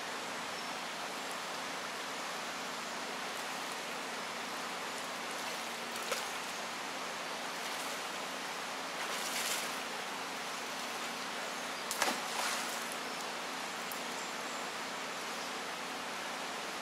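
Shallow river running over stones, a steady rushing of water. A few brief sharper sounds break through about six, nine and twelve seconds in.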